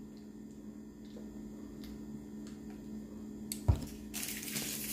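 Faint sipping of a soft drink through a plastic straw over a steady electrical hum. About three and a half seconds in, a sharp thump as the plastic cup is set down on the table, followed by rustling.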